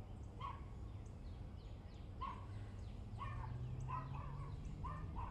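An animal calling in short, repeated calls, about seven of them, coming closer together in the second half, over a low steady hum.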